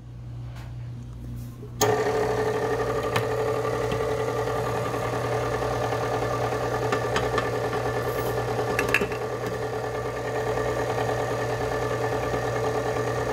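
Electric stand mixer switched on about two seconds in, then running steadily as its flat beater turns through the batter and flour in a steel bowl. A couple of faint clicks sound over the motor.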